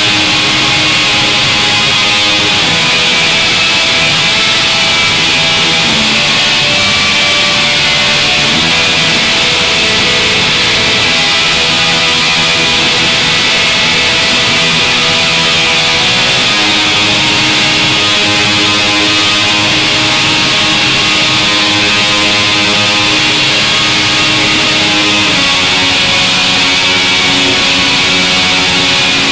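Guitar instrumental music at a steady, loud level, dense with long held notes.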